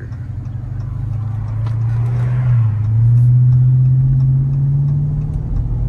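Chrysler 300's engine and exhaust under hard acceleration: the engine note climbs with the revs, drops briefly at an upshift about two and a half seconds in, then climbs again, growing louder.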